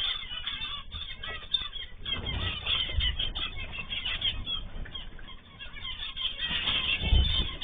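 Cage birds (cockatiels, zebra finches and canaries) chirping and calling together in a busy, overlapping chatter. There are bouts of wing flapping about two to three seconds in and again near the end.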